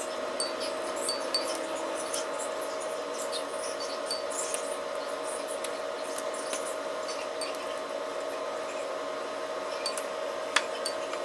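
Firm tofu being crumbled by hand into a ceramic bowl: scattered soft ticks and small clicks as pieces break off and drop in, with one sharper click near the end. A steady hum with a few fixed tones runs underneath.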